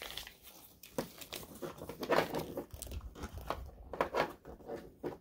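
Paper crinkling and rustling in short, uneven crackles as a long accordion-folded paper collector's guide is pulled open.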